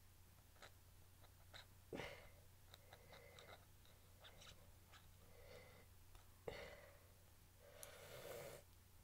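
Faint strained breaths and exhales from a man struggling with the top of a small can, with a few sharp clicks from his fingers working at it, the two loudest about two seconds in and near six and a half seconds.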